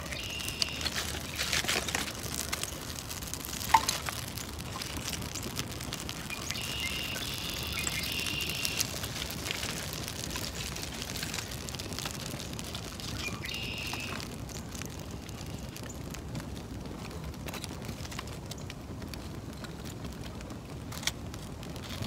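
Small campfire of wood shavings and kindling catching and crackling, with scattered snaps and one sharp pop about four seconds in.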